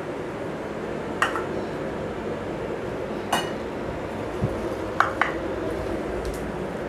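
Several light clinks and knocks of kitchen dishes, scattered and irregular, over a steady low background hum.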